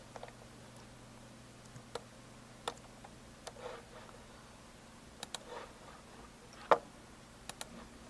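Computer mouse clicks and keyboard key presses: about ten sharp clicks at irregular spacing, some in quick pairs, the loudest a little before 7 seconds, over a faint steady low hum.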